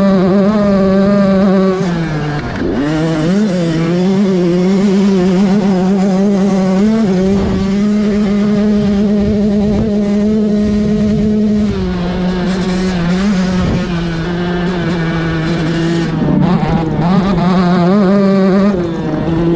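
Yamaha YZ125's 125 cc single-cylinder two-stroke engine running hard at high revs while riding a dirt trail. The revs dip sharply and climb back about two and a half seconds in, settle slightly lower around twelve seconds in, and dip briefly twice near the end.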